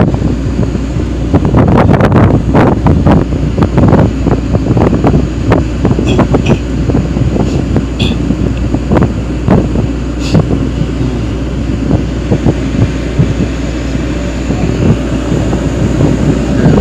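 Wind buffeting the microphone in uneven gusts, over a steady low rumble.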